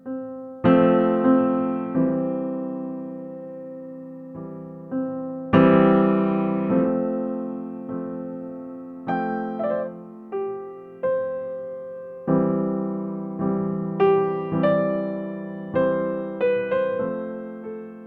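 Background music: slow, soft piano playing, single notes and chords struck one after another and each left to fade.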